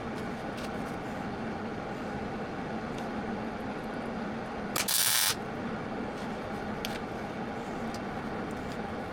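Welder tacking a steel battery tray to a motorcycle frame: a steady hiss with a faint hum under it, and one short, much louder hissing burst about five seconds in.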